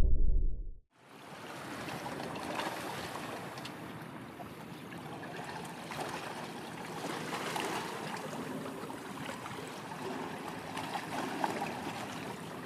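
A deep boom fades out and cuts off within the first second. Then a steady wash of sea ambience follows: small waves lapping and wind over the water.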